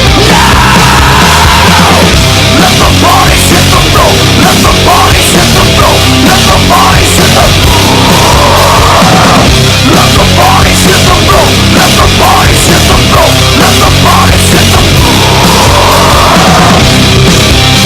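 Loud heavy metal music playing without a break.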